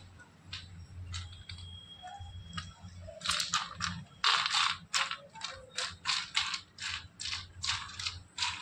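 Repeated scraping and rattling of cashews being handled on a steel plate, in quick strokes about two to three a second that begin about three seconds in.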